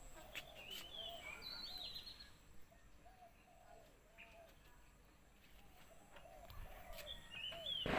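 Birds chirping faintly: a run of short, repeated calls, with a few higher chirps mixed in.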